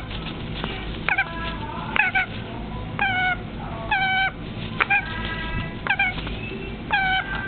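A pet being petted gives short pitched calls about once a second, seven in all, each dropping sharply in pitch and then holding level.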